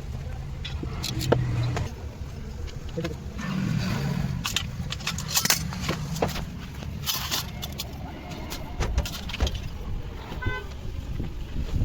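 A car engine idling steadily, with irregular sharp clicks and knocks over it.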